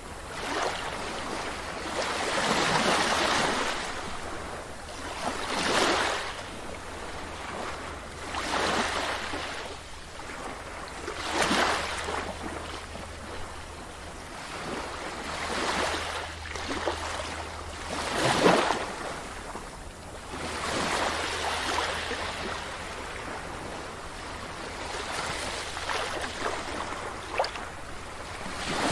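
Sea waves breaking and washing up a beach, with a surge of surf every few seconds. The strongest surge comes about two-thirds of the way through.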